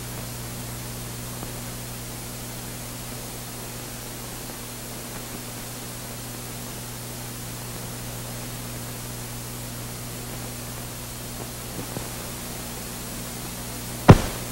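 Steady hiss and low hum of an old film soundtrack with nothing else playing, broken by one sharp click near the end.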